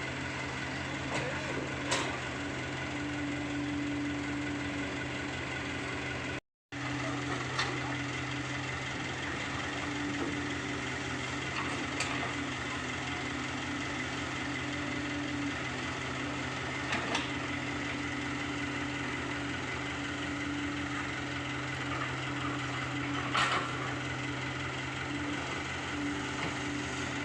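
Komatsu PC75UU excavator's diesel engine running steadily at an even pitch, with a few sharp knocks every few seconds. The sound cuts out for a moment about six seconds in.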